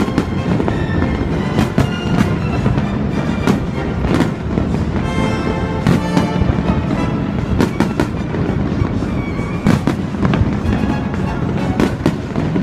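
Fireworks display: aerial shells bursting in an irregular run of bangs, several a second, with music playing alongside.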